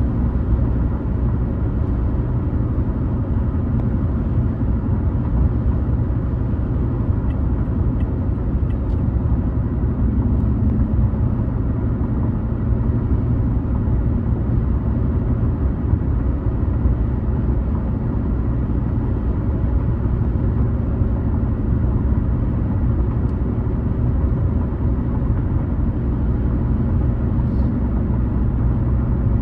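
A car driving on the road: a steady low rumble of tyre and road noise with engine drone, unchanging throughout.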